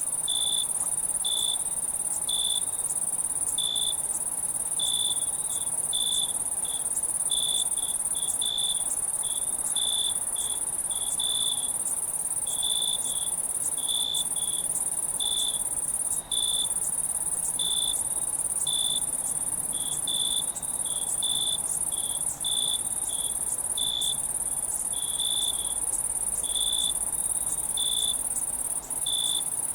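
Crickets chirping at night: a continuous very high-pitched trill, with short, louder chirps repeating one to two times a second.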